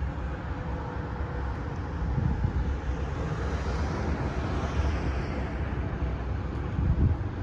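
Steady traffic noise from a nearby freeway, with a louder swell of passing traffic a few seconds in, and wind rumbling on the microphone.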